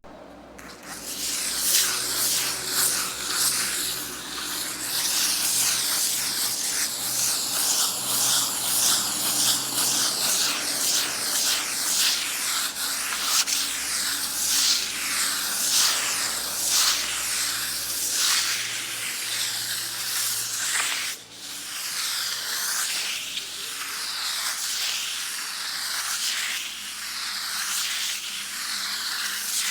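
Sandpaper rubbed back and forth against a wall in repeated strokes, a rough scratching hiss. It starts about a second in and stops briefly about 21 seconds in.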